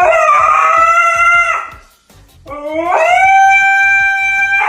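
A dog howling: two long howls, each sliding up in pitch and then holding steady, with a short break between them about a second and a half in.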